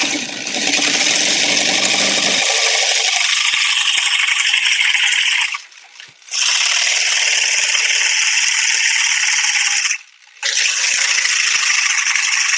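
Electric power saw cutting into a wooden shelf edge in three runs, with a short pause a little over halfway and another about ten seconds in.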